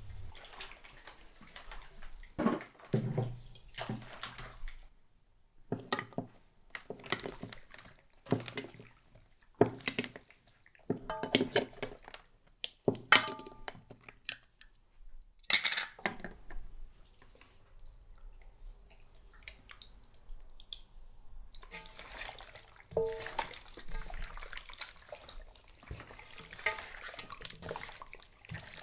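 Water splashing and dripping in a bowl, with dishes clinking, in a string of short, separate handling sounds with pauses between them.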